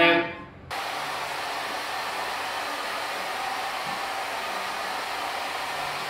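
Handheld hair dryer blowing steadily, cutting in suddenly about a second in.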